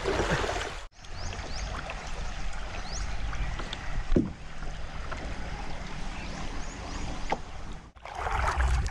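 River water rushing and splashing around a plastic kayak running a shallow, stony riffle. It drops abruptly to a quieter, steady water murmur about a second in, and the louder rush comes back abruptly near the end.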